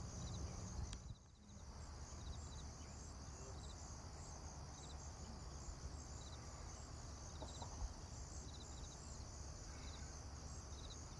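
Faint outdoor ambience of insects: a steady high chorus with short chirping trills repeating about once a second. The sound breaks off briefly about a second in.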